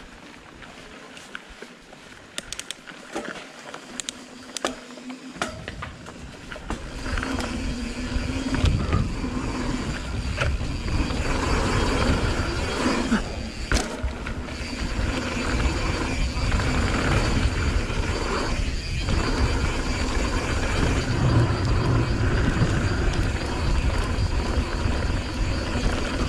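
Mountain bike descending a rocky dirt trail: scattered clicks and rattles at first, then from about six seconds in a loud, steady rush of tyre noise over dirt and gravel with wind on the microphone as speed builds.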